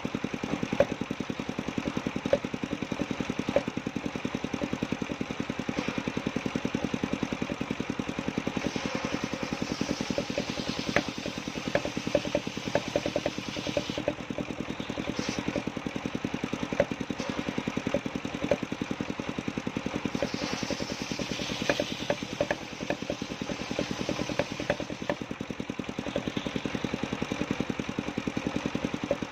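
Engine-driven circular saw machine running with a fast, even chugging throughout. Twice, about a third of the way in and again past two-thirds, a higher hiss joins it as the blade cuts through coconut-palm trunk wood, with scattered sharp clicks.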